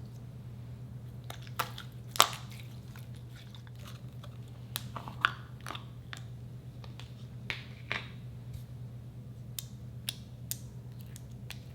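Slime being squeezed and poked, giving irregular sticky clicks and pops, the loudest a little after two seconds and around five seconds in. A steady low hum runs underneath.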